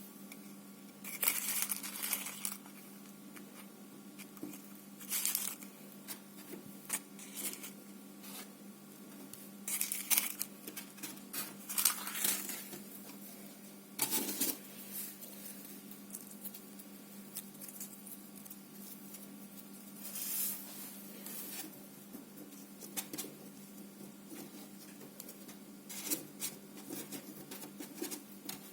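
Pink slime being pressed and stretched by hand, giving sticky crackling and popping in bursts with quieter pauses between. A steady low electrical hum runs underneath.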